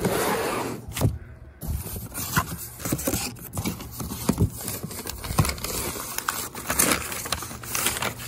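Rustling, crinkling and scraping of a cardboard shipping box and crumpled brown packing paper as the box is opened and its contents are dug out, with many small clicks and knocks.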